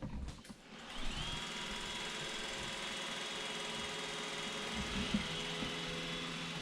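Roomba robot vacuum running: its motor spins up about a second in, then runs at a steady whine of several pitches.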